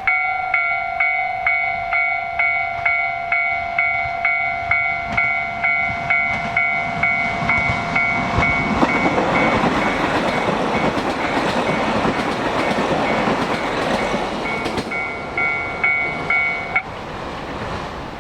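Japanese railroad crossing warning bell ringing its 'kan-kan' strokes, about two a second, over a steady electronic tone. About nine seconds in, a diesel train going over the crossing swamps it with broad noise for about six seconds, and the bell cuts off a little before the end.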